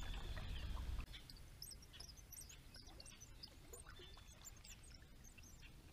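Faint, scattered short high chirps of small songbirds, with a low rumble in the first second.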